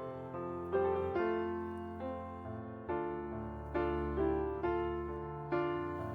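Background piano music: slow, gentle notes and chords, each struck and left to ring out.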